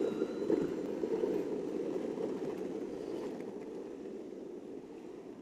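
Steady low rushing noise of riding along a road, wind and wheel rumble, slowly easing toward the end.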